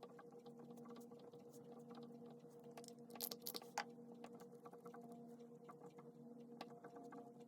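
Faint pen scratching and tapping on paper during handwriting, a series of small ticks with a louder scratchy stretch about three seconds in, over a steady low electrical hum.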